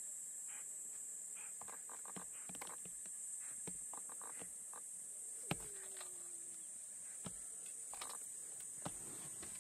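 Steady high-pitched insect chorus, with scattered soft taps and clicks. About five and a half seconds in there is a sharp click, followed by a short whine that falls in pitch.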